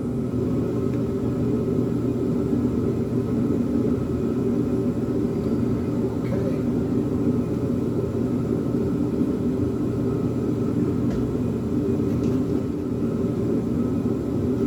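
Steady low rumble from a running machine or fan, with a few faint taps and clicks.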